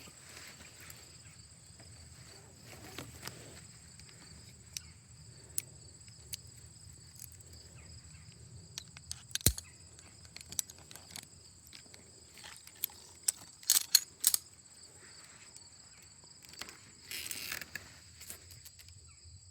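Insects chirping steadily at two high pitches, with scattered sharp clicks and knocks, the loudest about halfway through and a quick cluster a few seconds later, and a brief rustle near the end.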